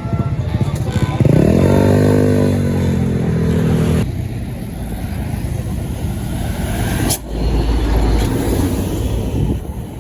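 Traffic of passing tour buses. About a second in, a loud, low, droning tone rises in pitch, holds for about two seconds and cuts off sharply. Steadier road noise follows, with a brief deep rumble in the second half.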